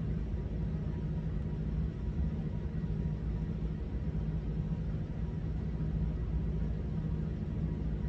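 Steady low rumbling hum of background room noise, with a faint steady high tone over it and no distinct events.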